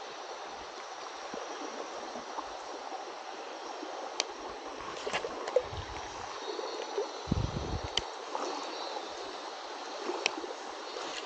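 Shallow river water rushing and rippling steadily. A few sharp clicks come through it, and a couple of dull low thumps around the middle.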